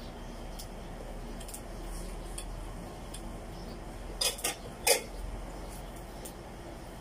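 Fresh leafy vegetable stems snapped apart by hand: a few faint crackles, then three sharp snaps about four to five seconds in, over a faint steady low hum.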